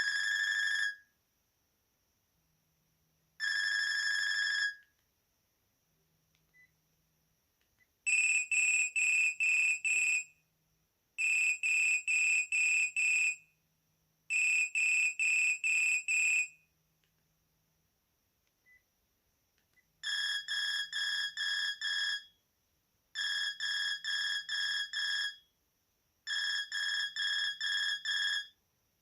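Sharp GX1 mobile phone playing its built-in preset ringtones: electronic beeps from the phone's speaker. It begins with two long beeps, then moves on to repeated bursts of rapid beeping trills separated by short pauses. Later the trills continue at a lower pitch.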